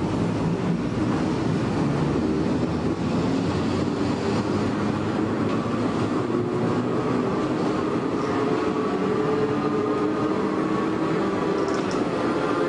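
Shin-Keisei 100-series electric train with nose-suspended traction motors running along the line, heard from inside the car. Wheels rumble steadily on the rails under a whine from the motors and gears that drifts slowly in pitch.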